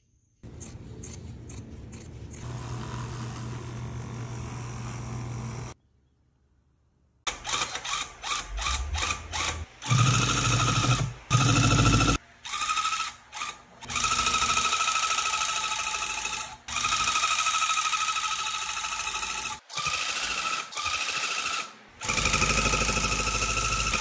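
Electric handheld rug-tufting gun running: a steady high whine over a fast mechanical chatter, started and stopped in quick short bursts, then in longer runs of a few seconds each. Before it, a quieter steady hum for about five seconds and a short gap.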